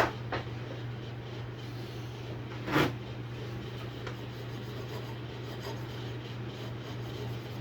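Rag rubbing lacquer thinner over the sander's bare metal disc plate to clean off old sanding-disc adhesive: a soft, scratchy wiping with one brief louder scuff about three seconds in, over a steady low hum.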